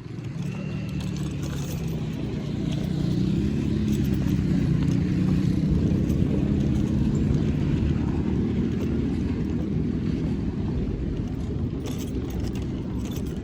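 Motor vehicle engine running, with a steady low drone that grows louder over the first few seconds and eases off slightly near the end.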